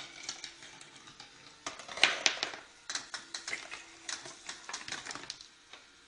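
Irregular clicking and clattering of small hard parts, like a mechanism or small objects knocking about, with two louder knocks about two seconds in, over a faint steady hum.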